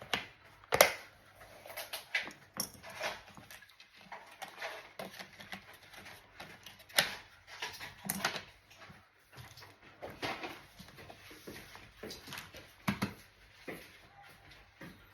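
Irregular clicks, taps and knocks of hands working on a laptop: plastic panels and small parts being handled on a hard surface, with the loudest knocks about a second in and near the middle.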